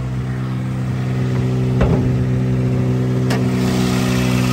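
1991 Mazda 323's four-cylinder engine idling steadily, a little louder and hissier near the end, with two short knocks about a second and a half apart.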